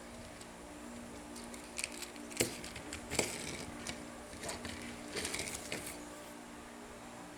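Faint clicks, taps and rustles of plastic toy planes and helicopters being handled, scattered over a few seconds, over a low steady hum.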